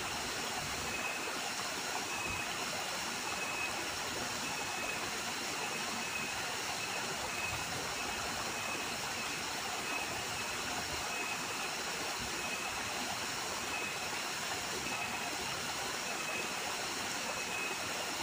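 Small waterfall splashing steadily into a rocky stream pool. A faint high chirp repeats about once a second.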